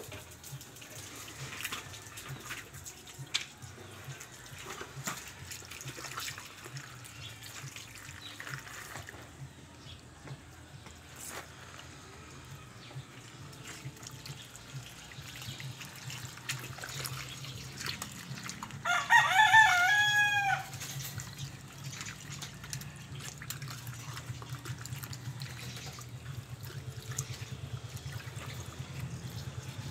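A rooster crows once, about two-thirds of the way through: one call of about two seconds that rises and then holds. Under it are a low steady hum and faint scattered clicks and knocks.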